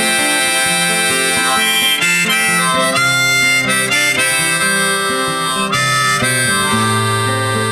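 Background music: the instrumental break of a song, a harmonica playing held, shifting notes over guitar.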